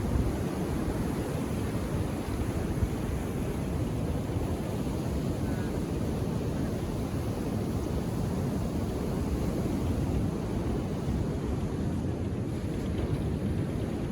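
Calm Indian Ocean surf, a steady rush of waves with no single break standing out, mixed with the low rumble of wind on the microphone.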